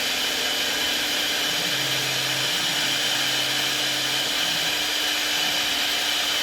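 CNC router running: a steady high whine and hiss from the spindle, with a faint low hum for a couple of seconds in the middle.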